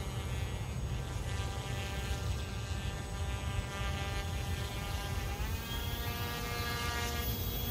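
Small electric motor and propeller of a radio-controlled boat whining steadily, dropping in pitch about five seconds in as the throttle eases, over a steady low rumble.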